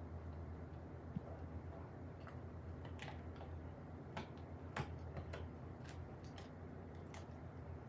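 Dog gnawing a bone: irregular sharp clicks of teeth on bone, over a steady low hum.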